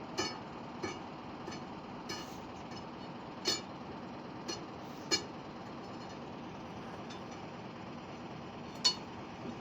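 Metal striking metal: about eight irregular clinks, each ringing briefly, the sharpest a little past the middle and near the end. A steady machine hum runs underneath.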